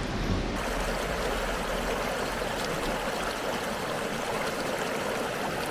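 River water flowing steadily, an even rushing of the current.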